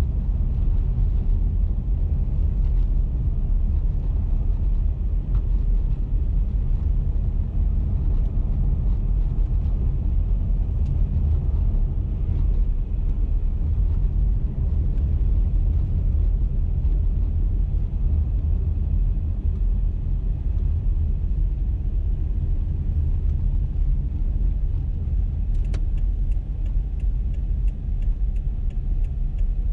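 A car driving at speed, with a steady low rumble of road and engine noise. Near the end the turn-signal indicator starts ticking at about two ticks a second.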